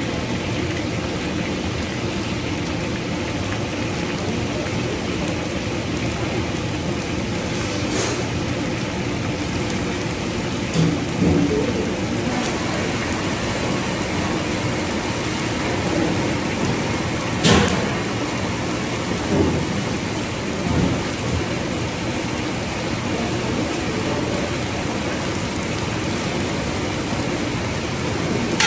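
Steady sizzle of food frying in hot oil in a large wok. A few short knocks and clinks break through, the loudest a little past halfway.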